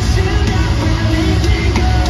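Live metal band playing loud and steady through a stadium PA: distorted electric guitar over heavy, dense bass.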